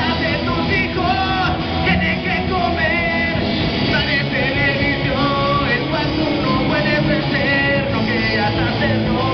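Live rock band playing: electric guitars and a drum kit through amplifiers, with a male lead singer singing into a microphone.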